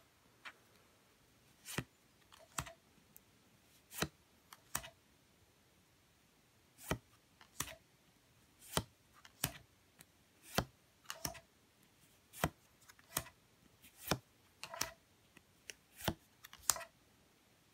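Stiff game cards being flipped through by hand, each card slid off the stack with a short click, often two clicks close together, with gaps of about a second between them.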